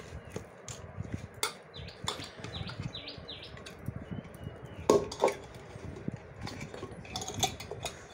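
Stiff papad dough being worked loose by hand in a metal pot, with the pot knocking and scraping as it is handled. There is one sharp metal clang with a short ring about five seconds in.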